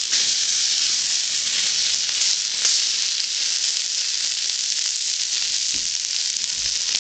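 Water poured onto a burning fire-starter patty, hissing and sizzling steadily as it hits the flame.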